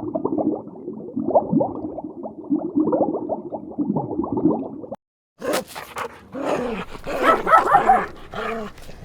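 Dog calls in two clips: first a dense run of short, sliding calls, then after a brief break about five seconds in, louder dog calls that reach higher in pitch.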